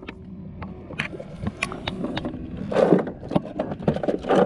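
Irregular clicks, knocks and scrapes of fishing gear being handled on a plastic fishing kayak while a landing net is readied to land a hooked fish. There are two louder, longer bursts of handling noise, about three seconds in and again near the end.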